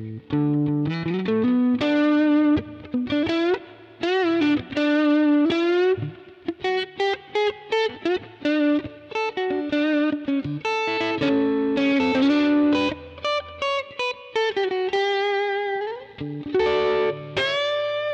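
Electric guitar with a crunch tone through a Zoom G1X On multi-effects pedal, playing a blues-style lead line of single notes with string bends and vibrato, with a few chords mixed in, ending on a held bent note.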